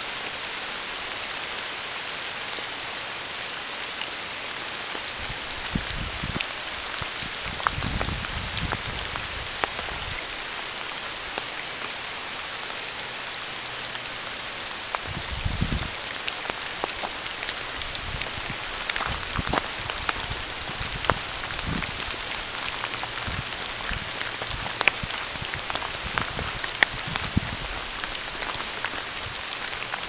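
Steady rain falling on leaves and ground: a continuous hiss with scattered sharp ticks of single drops. A few dull low thumps come about a quarter of the way in and again about halfway.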